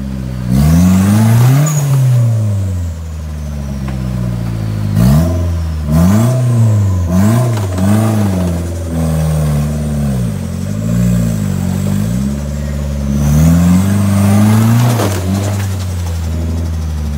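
Modified off-road 4x4's engine revving in repeated bursts, the pitch rising and falling as the driver works the throttle to crawl through deep mud. There are a few quick blips in the middle and longer climbs near the start and toward the end.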